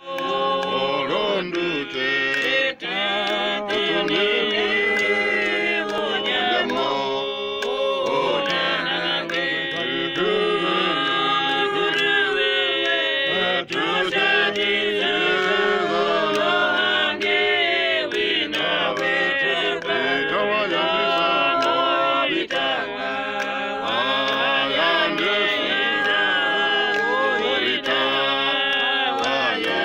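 Small mixed group of men and women singing a hymn together, unaccompanied, in several voice parts.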